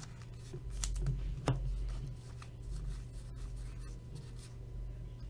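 Trading cards being handled and slid across one another, soft rustling with a few light ticks, one sharper about a second and a half in, over a steady low hum.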